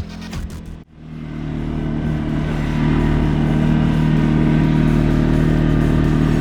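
A CFMoto 520L ATV's engine running steadily. It comes in about a second in, right after a brief end of music, and swells over the next two seconds before holding an even pitch.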